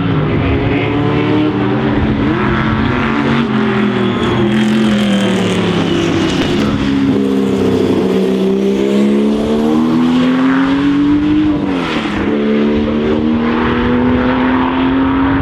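Historic racing car engine running hard, its pitch sinking slowly and then climbing again, with a sharp brief drop about twelve seconds in before it climbs once more.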